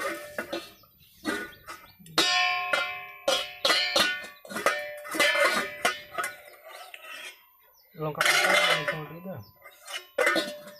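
Stainless steel cooking pots and lids clanking together as a toddler bangs and handles them, a string of sharp knocks each ringing on briefly with a metallic tone.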